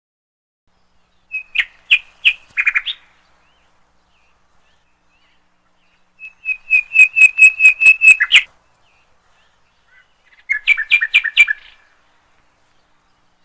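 A bird singing three short phrases of fast repeated chirps, each lasting a second or two. The middle phrase is the longest, about five notes a second, ending on a sharp note.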